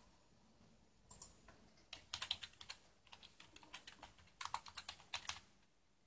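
A computer keyboard being typed on in quick runs of clicking keystrokes, entering a password to sign in.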